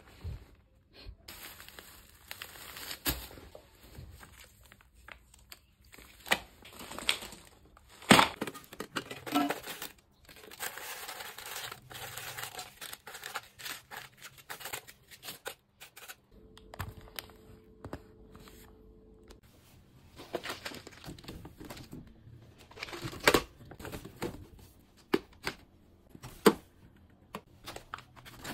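Plastic and foil snack packaging crinkling and rustling as it is handled, with many sharp clicks and knocks from tins and plastic jars being picked up and set down, the loudest about a third of the way in.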